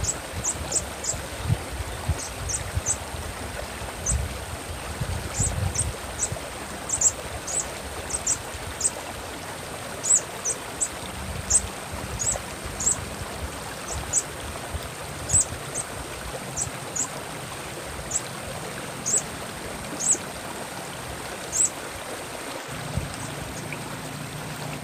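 Steadily running, trickling stream water with a sunbird's short, high chip calls repeated irregularly over it, about one or two a second.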